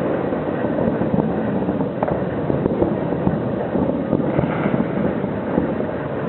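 Fireworks display heard from a distance: many bangs running together into a continuous rumble, with frequent sharper cracks and pops.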